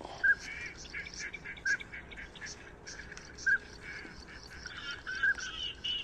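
Birds calling: short, repeated chirping calls, one every second or so, over faint clicking.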